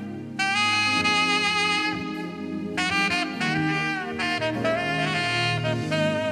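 Saxophone playing a slow melody over keyboard accompaniment: a held phrase starts about half a second in, breaks just before the three-second mark, and a new phrase follows.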